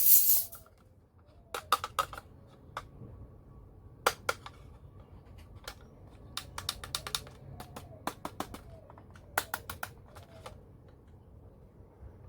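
Small hard toy pieces of a miniature kitchen set clicking and tapping as they are handled and fitted, in several quick clusters of sharp clicks. A brief loud hiss opens the sound.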